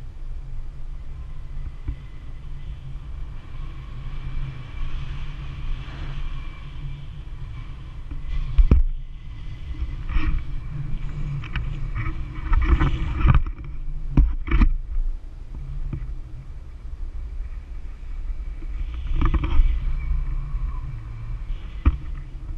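Wind rushing over the microphone of a camera held out on a paraglider in flight: a steady low rumble with several louder gusts in the middle and near the end.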